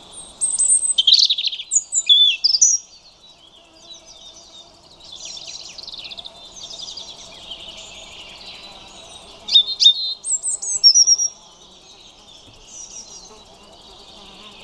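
European robin singing: two loud phrases of quick, varied high-pitched notes, one near the start and another about two-thirds through, with fainter bird song between them.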